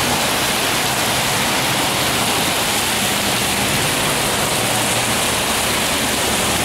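Heavy rain and rainwater running off a roof, pouring down and spilling out of a joint in a corrugated metal downspout: a steady, loud rushing hiss. The owner takes the water escaping at the joint as a sign that the pipe is clogged further up.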